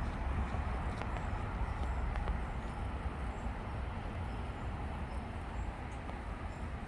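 Outdoor ambience: a steady low rumble and hiss, with faint short high chirps scattered through.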